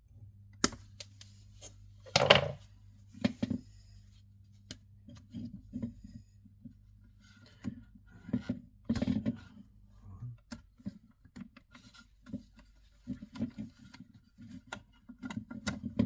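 Hand tools and electrical wiring being worked at a wall socket: irregular small clicks, taps and scrapes, the loudest scrape about two seconds in. A low steady hum runs underneath and cuts off about ten seconds in.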